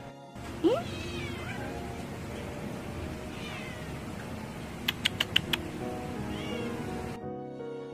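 Stray cats meowing several times, each call rising or bending in pitch, the first one the loudest, over a steady background hiss. A quick run of four or five sharp clicks comes about five seconds in.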